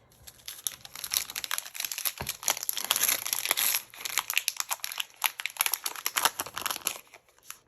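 Foil Pokémon booster-pack wrapper crinkling as it is handled, a dense crackle that keeps up for about seven seconds and stops shortly before the end.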